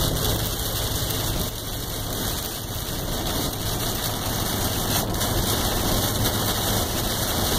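Steady cabin noise inside a Dodge Ram pickup driving through a heavy rainstorm: engine and road noise mixed with rain on the glass and body.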